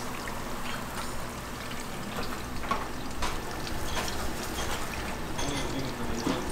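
Kitchen work sounds: a steady hiss with scattered light clicks and clatter.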